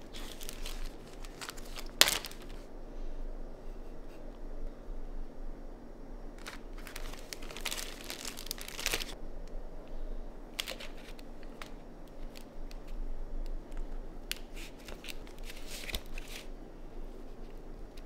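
Clear plastic zip-top bag crinkling as hands open and handle it, in several irregular bursts, the longest in the middle. A single sharp tap about two seconds in.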